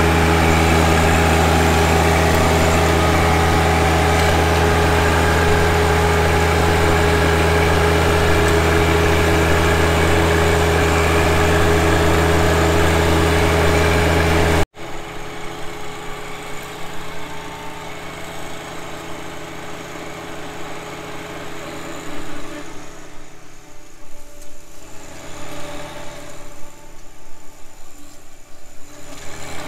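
John Deere 1025R compact tractor's three-cylinder diesel running steady at working speed, driving an offset flail mower through tall grass, heard close up. About halfway through the sound cuts off abruptly and the tractor and mower continue much quieter and further off.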